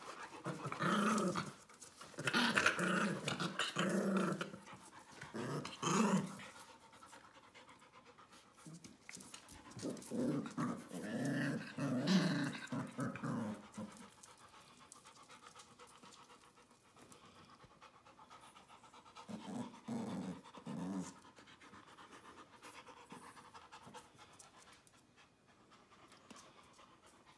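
Puppies and a young dog panting and making play noises as they tussle, in several loud bursts with quieter gaps between.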